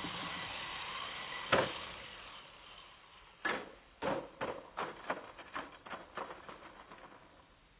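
Blade mQx micro quadcopter's small electric motors and propellers whining. About a second and a half in there is one sharp clack, the loudest sound, and the whine fades away. After that comes a run of about a dozen sharp clicks, roughly two a second, fading toward the end.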